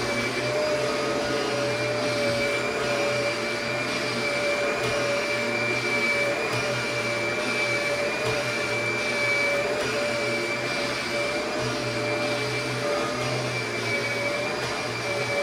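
Kirby upright vacuum cleaner running steadily as it vacuums a mattress, a constant motor whine over the rush of air.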